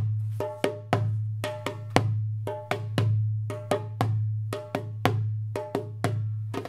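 Percussion music: a repeating rhythm of sharp drum strikes, several a second, over a low steady tone.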